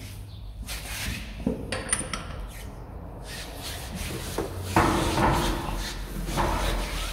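Torque wrench being fitted onto a car's wheel bolts and pulled to tighten them: light clicks and knocks of the socket and metal for the first few seconds, then from about five seconds in a louder, longer rubbing sound with a steady hum in it.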